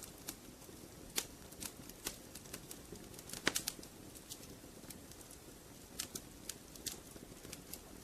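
Wood fire crackling in a fireplace: irregular sharp pops and snaps over the low, steady rush of the flames, with a quick cluster of the loudest pops about three and a half seconds in.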